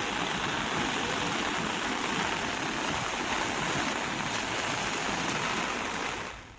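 River in flood rushing steadily, its fast brown floodwater giving a continuous rushing noise. The sound fades out sharply near the end.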